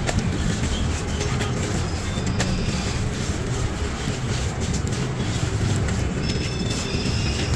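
Dry sand-cement crumbs crunching, crumbling and trickling through fingers onto a concrete floor, with a few sharp clicks of grit, over a steady low rumble.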